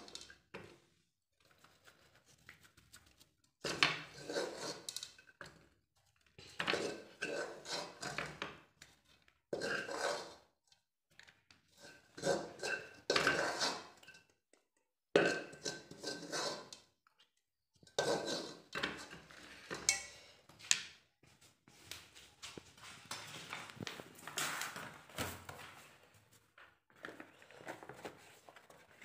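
A metal spoon scraping and knocking in a cooking pot in irregular bursts of about a second each, as the cooked walithalapa mixture is scooped out.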